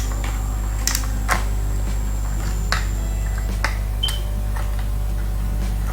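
A few separate light clicks and taps of a laptop motherboard and its cables being handled and fitted into the plastic chassis, over a steady low electrical hum.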